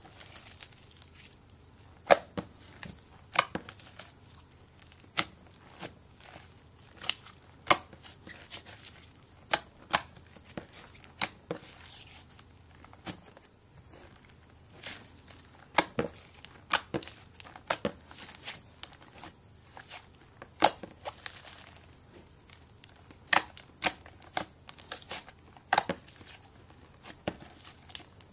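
Green and white slime being pressed and kneaded by hand, giving off irregular sharp pops and crackles, roughly one every second or so, some much louder than others.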